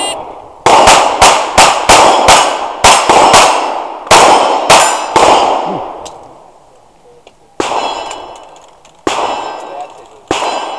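Ruger 22/45 Lite .22 pistol firing a fast string of about a dozen shots at steel plates, each hit answered by a metallic clang and ring. After a pause of about two seconds come three more spaced shots and clangs.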